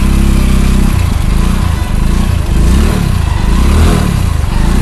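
Motorcycle engine running, its pitch rising and falling several times as the throttle changes.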